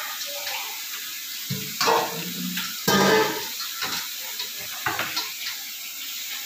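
Stainless steel bowls being washed by hand with water, the metal clinking and scraping against each other and the tile floor, with a couple of louder clatters near the middle.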